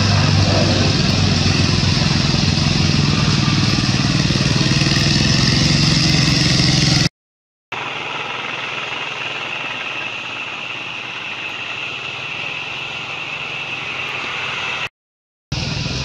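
A steady engine running, a low even hum under a broad hiss. About seven seconds in it cuts out for half a second and comes back as a quieter steady hiss with a high, even band and little of the hum, with a second short dropout near the end.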